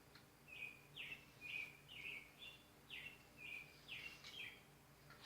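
A bird chirping faintly: a run of about ten short high notes, each sliding down and then holding briefly.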